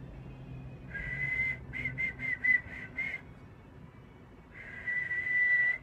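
A man whistling into a telephone handset as a sound-healing treatment. The whistle is held briefly about a second in, then comes as about six short warbled notes, and ends with a long steady whistle near the end.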